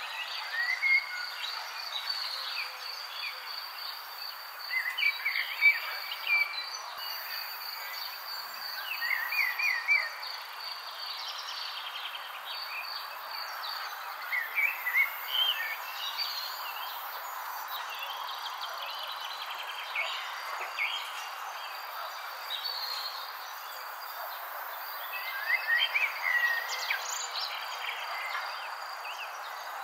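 Insects trilling in a steady, pulsing high tone over a constant hiss, with short clusters of bird chirps every few seconds.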